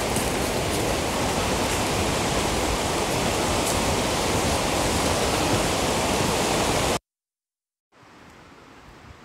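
Loud, steady rushing of river water. It cuts off suddenly about seven seconds in, and after a second of silence a much quieter, even outdoor hush follows.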